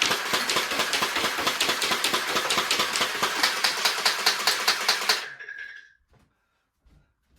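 Toy Gatling-style dart blaster firing a rapid rattling stream of shots, about eight a second, that stops abruptly about five seconds in, leaving only a few faint clicks.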